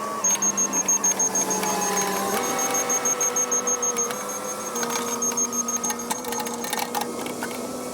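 Cat 308 excavator running steadily, its engine and hydraulic whine stepping up in pitch about two and a half seconds in.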